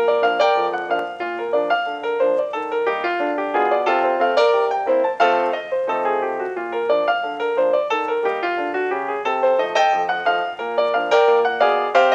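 Background piano music: a stream of quick notes, struck one after another.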